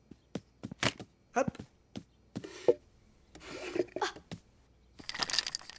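Light clicks and knocks with a short scrape as a small wooden drawer is pulled open and a box of crayons is taken out, ending in a brief rattle.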